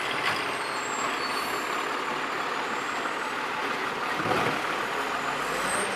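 Garbage truck sound: a truck running with a steady hiss, and a couple of short knocks near the end.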